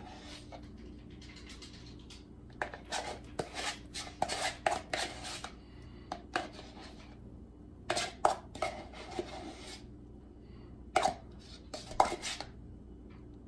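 A spoon clinking and scraping against a container as cottage cheese is scooped into a blender jar, in several short bursts with pauses between.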